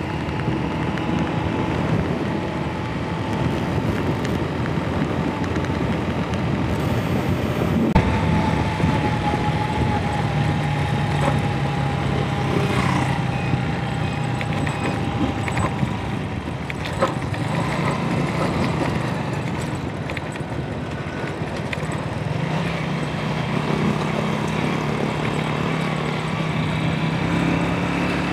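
Honda CG 125's single-cylinder four-stroke engine running steadily under way, with wind rushing over the helmet-mounted microphone.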